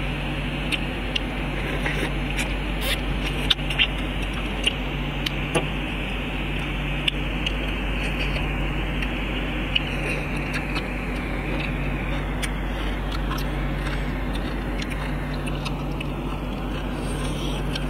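Steady hiss and low hum, with scattered sharp clicks and taps from eating with wooden chopsticks, mostly in the first half.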